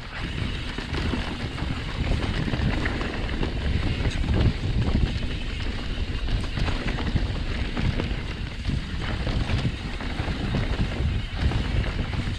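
Wind rushing over the camera microphone, mixed with the tyres and frame of a mountain bike jolting along a dirt singletrack at speed, as a steady rough noise with uneven bumps.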